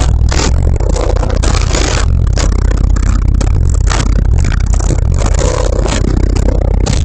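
Two Fi SP4 18-inch subwoofers in a wall build playing bass-heavy music at high volume, a strong continuous deep bass, with the car's body and trim clattering and buzzing along with the bass.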